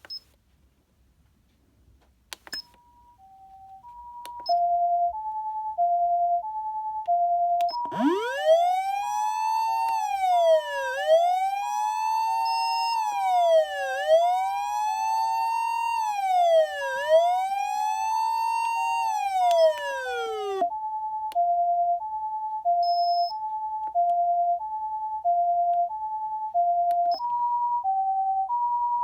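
Osaka Siren OPS-5101V-Q ambulance siren amplifier: after two switch clicks, its two-tone ambulance call fades in as alternating high and low tones. About eight seconds in a wailing siren joins it, sweeping up from low and then falling and rising about every three seconds. The wail cuts off abruptly about twenty seconds in while the two-tone call carries on.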